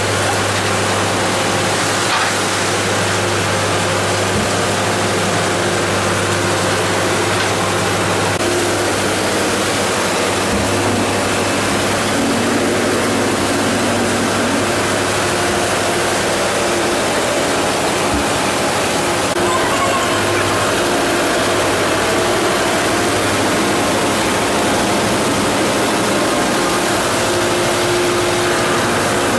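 Steady machinery noise of a factory trawler's fish-processing line: a constant low hum of motors under an even hiss.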